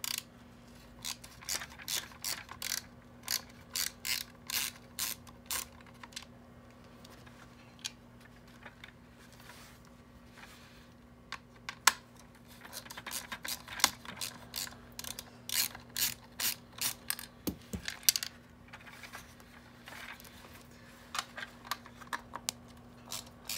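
Small 3/16-inch socket ratchet clicking in several short runs of rapid clicks, with pauses between, as it backs out small circuit-board screws.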